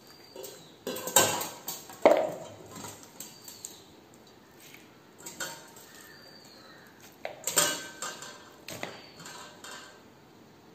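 Stainless-steel colander and pot clinking and clattering as raw chicken pieces are lifted out by hand and dropped into a plastic bowl. Several separate clatters, the loudest about one and two seconds in, with more between seven and nine seconds.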